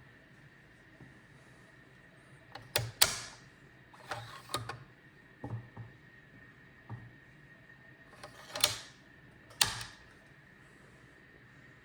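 A scattering of sharp clicks and knocks, about seven or eight, some in quick pairs, like objects being handled and set down, over a faint steady hum.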